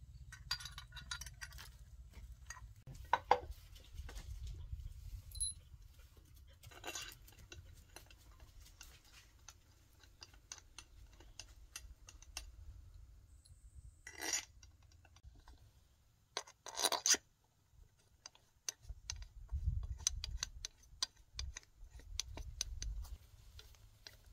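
Metal hand tools clinking and knocking against the parts of a walk-behind tractor's small diesel engine as it is worked on: scattered light clicks with a few louder knocks.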